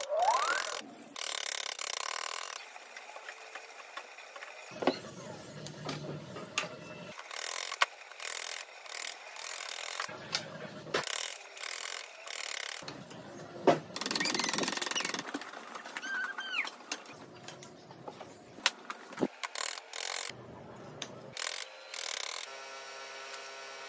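Hand chisel paring the edges of a hardwood bowtie key: short scraping cuts in bursts a few seconds apart, with sharp clicks as chips break away and the blade is set down on the wood.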